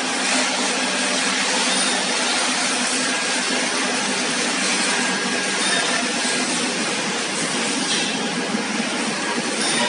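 Stainless-steel tube mill running: a steady, loud mechanical din with a faint constant hum underneath.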